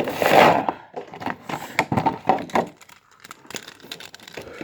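Plastic-and-cardboard toy packaging being handled and opened: a crackling burst in the first second, then a string of sharp clicks and taps that grow fainter and sparser.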